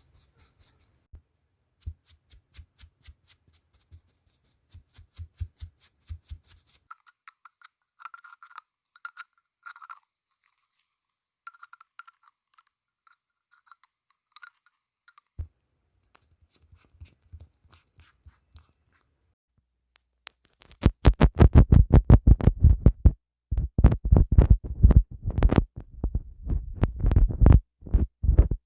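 Close-miked ASMR sounds of makeup tools. Rapid faint brushing strokes give way to a few small clicking taps with short ringing tones, and in the last several seconds to loud, fast brushing strokes.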